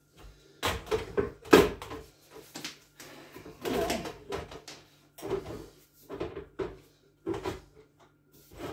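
Stainless-steel chicken plucker drum being handled and fitted back onto its base: a string of irregular metal clunks and rattles, the loudest about one and a half seconds in.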